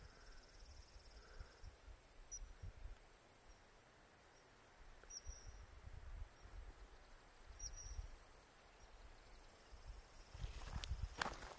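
Quiet open-air ambience: a steady high insect hum with a low, uneven wind rumble on the microphone and a few faint short high chirps. Near the end, footsteps crunching through dry grass begin.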